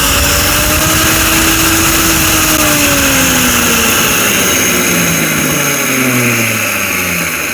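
Kitchen mixer grinder's motor running with an excessive, loud mechanical noise, the fault it is in for repair. Its hum sinks in pitch through the second half and the noise begins to fade near the end as the motor slows.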